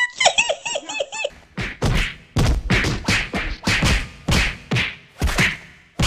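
A brief warbling tone, then a run of heavy, sharp thumps at about two a second, each hit dying away quickly.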